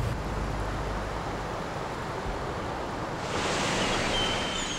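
Sea water washing and lapping, a steady rushing noise that turns brighter and hissier about three seconds in, with a brief thin high whistle near the end.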